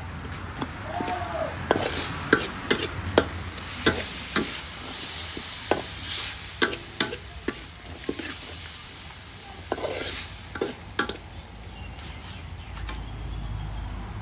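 Metal spatula scraping and clinking against a steel wok as diced vegetables are stirred and tossed, with oil sizzling underneath. The clinks come in quick irregular strokes and thin out near the end.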